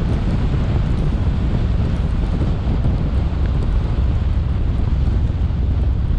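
Blizzard wind buffeting the microphone: a loud, steady, low rumble of wind noise.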